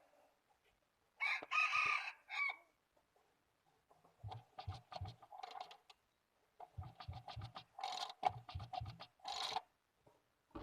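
Chickens calling: one loud call about a second in, then two runs of quick, short clucks.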